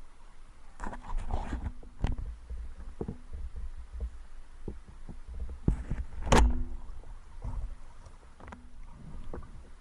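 Irregular knocks and clicks over a steady low rumble, the loudest knock about six seconds in.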